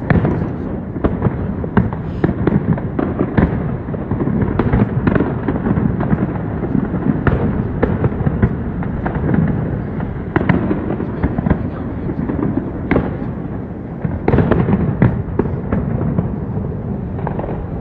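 Fireworks display going off: a continuous dense rumble of bursts with irregular sharp bangs throughout, several close together at times.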